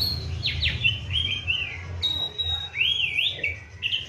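Oriental magpie-robin singing a varied song of clear whistles: quick downward sweeps, looping phrases and a held high note about halfway through.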